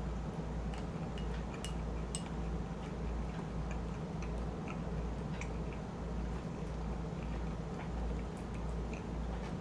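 Close-miked eating of shrimp chili and rice: scattered small wet clicks and mouth sounds of chewing over a steady low hum.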